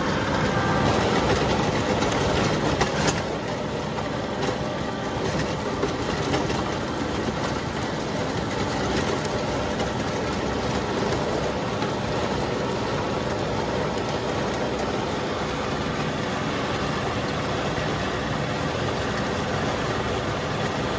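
John Deere 2038R compact tractor's three-cylinder diesel running with a rear-mounted John Deere 665 rotary tiller working the ground, a loud steady mechanical din.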